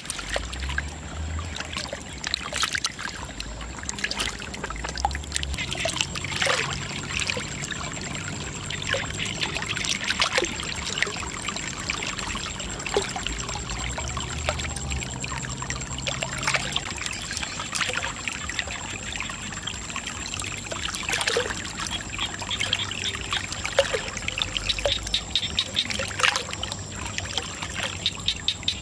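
Muddy water pouring from two pipes into a shallow pool, a steady run of splashing and trickling with many small, irregular splashes and drips.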